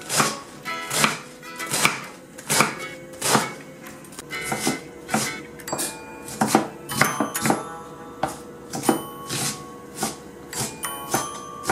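Chef's knife chopping Napa cabbage on a wooden cutting board, with the blade striking the board in regular strokes a little under a second apart.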